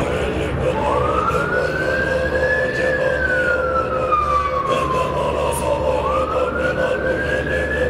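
Wailing emergency-vehicle siren cycling slowly: it rises about a second in, slides down over some three seconds, then rises again near the end, over a steady low hum.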